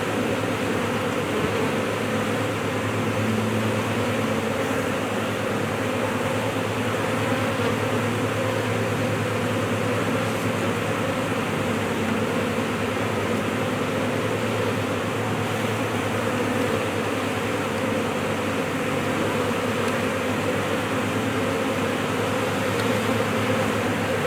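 A large swarm of honeybees buzzing steadily, a dense, continuous hum of many bees at once.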